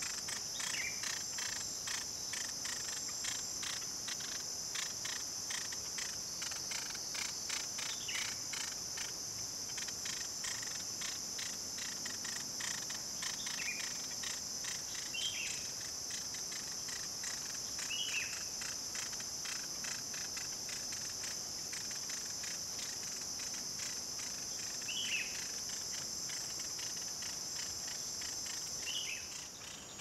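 Chorus of forest insects: a steady high-pitched drone with a fast, even pulsing. A few short bird chirps break through it now and then.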